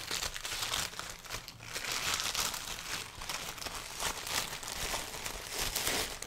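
Plastic mailing bag crinkling and rustling as it is cut open with scissors, close to the microphone.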